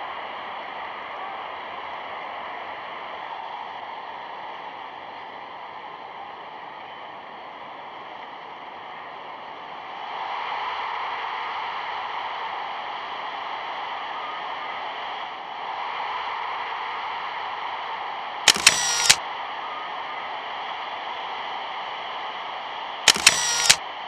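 Two camera-shutter sound effects near the end, about four and a half seconds apart, each a quick cluster of clicks. Under them runs the steady hiss of an old film soundtrack.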